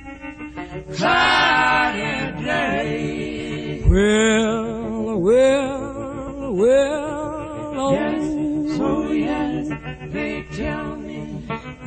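Background music: a singing voice holding long notes with a wide vibrato, starting about a second in, over a low steady drone.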